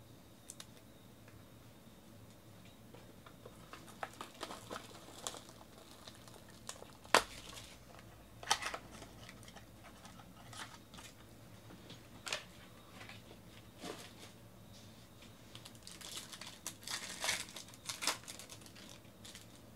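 Hands opening a small cardboard trading-card box and tearing open a foil card pack: scattered taps and crinkles, a sharp click about seven seconds in, and a denser run of foil crinkling near the end.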